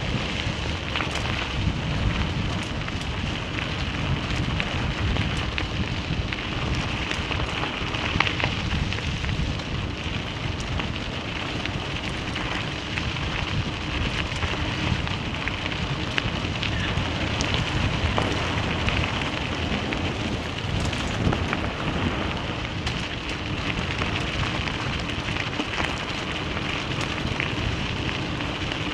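Tyres rolling over a gravel road: a steady rumble and crunch with small stones crackling and pinging, mixed with wind on the microphone.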